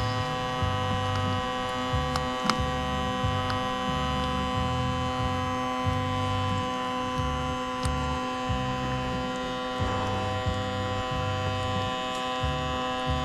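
A steady hum made of several fixed tones, with a low throbbing underneath that switches on and off irregularly, roughly every half second.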